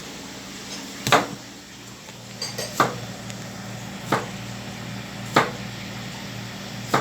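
Sharp knocks on a butcher's cutting board while beef is being cut up, five of them about a second and a half apart, over a steady low hum.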